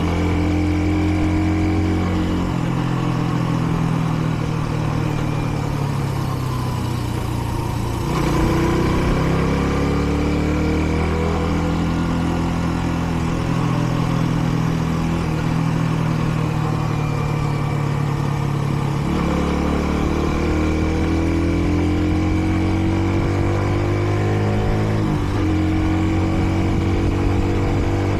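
Kreidler Dice CR 125's small single-cylinder engine pulling the motorcycle along, its pitch rising and falling several times as the rider rolls on and off the throttle and changes gear. The bike is still in its running-in period, held to moderate speeds.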